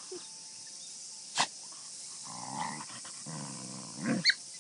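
Kishu x Shikoku puppies and an adult dog play-fighting: two stretches of growling through the middle, with a sharp click a little over a second in and a short high yip near the end.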